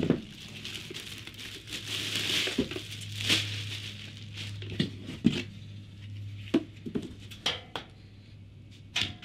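Plastic wrapping crinkling as it is pulled off an electric pressure washer, followed by scattered knocks and thumps as the unit and its cardboard box are handled. A faint low hum runs underneath.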